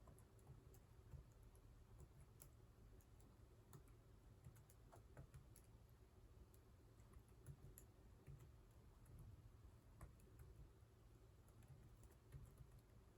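Faint typing on a computer keyboard: irregular, quick key clicks during a Japanese-input touch-typing drill.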